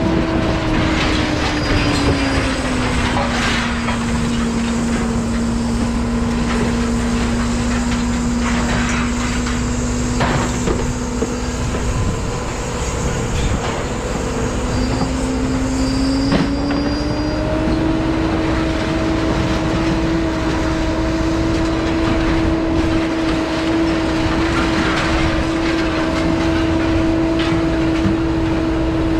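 Vehicle driving, heard from inside: a steady road rumble with a droning tone that drops in pitch a couple of seconds in and rises again about halfway through.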